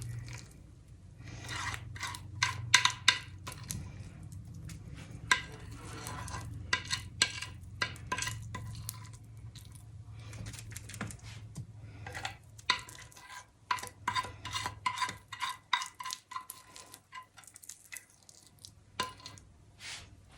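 A spoon or spatula scraping and clinking against a dish, working the sticky hot peanut brittle mixture out of it, in many short irregular scrapes and knocks, some ringing briefly. A low hum runs under it and fades out about two-thirds of the way through.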